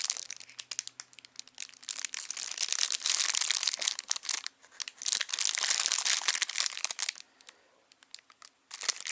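Plastic packaging crinkling and rustling as it is handled, in two longer stretches with a short pause between them and a quieter gap near the end.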